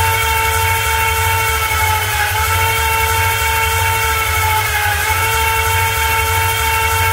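A motor running a steady whine as the 6.0 Powerstroke's high-pressure oil system is primed, with a low hum underneath; its pitch sags briefly every two to three seconds.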